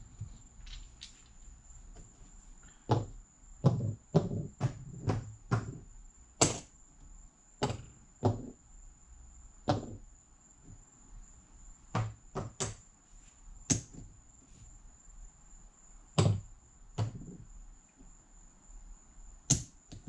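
Casino chips clacking as they are picked off stacks and set down on a felt craps table layout: irregular sharp clicks, often a second or so apart, some in quick clusters. A faint steady high-pitched whine runs underneath.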